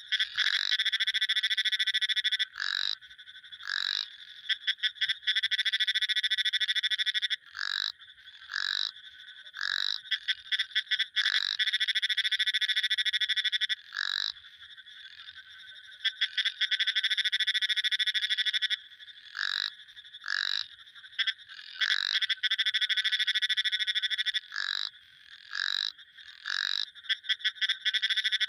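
Frogs calling: long, rapid, high-pitched trills lasting a few seconds each, alternating with short single croaks repeated at irregular intervals.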